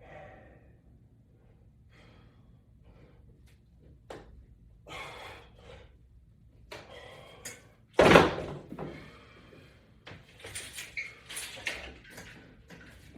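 Scattered knocks and clacks of a resistance-band exercise rig being worked and handled, with one loud thunk about eight seconds in.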